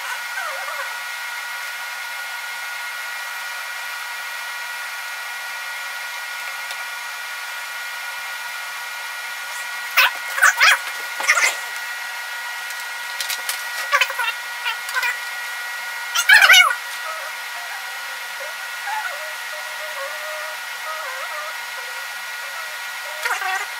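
Steady whirring hum, like a fan, running throughout. Lego bricks click and rattle sharply in short clusters about ten seconds in, again around 13 to 15 seconds, and most loudly around 16 seconds.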